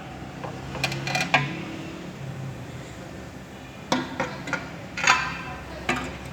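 A few sharp metallic clinks and clanks over a low steady hum.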